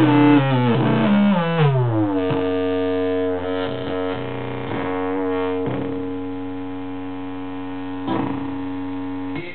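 Circuit-bent Casio MT-35 keyboard, run through an MS-20-style synth effect, sliding downward in glitchy pitch glides for about two seconds. It then settles into one held, droning tone, interrupted by a few short clicks.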